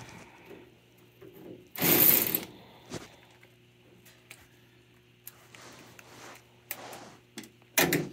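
Hand tools and furnace sheet metal being handled: a short loud scrape or rattle about two seconds in, then scattered sharp clicks and knocks, one of them loud near the end.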